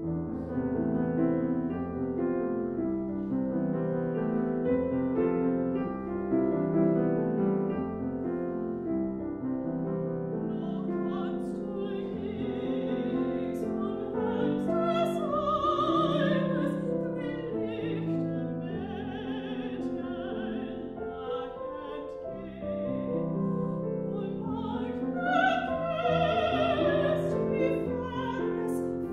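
A grand piano opens a German lied with a solo introduction. About twelve seconds in, a soprano enters, singing with vibrato over the piano accompaniment.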